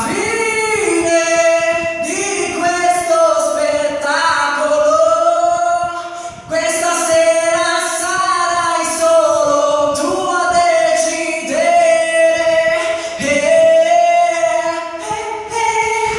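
A man singing a pop ballad, holding long, gliding notes in phrases with short breaks between them.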